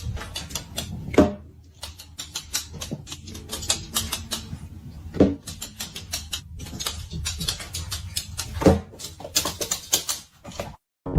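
A quick, irregular run of clicks and taps, with a louder knock about a second in, another around five seconds in, and a third near nine seconds.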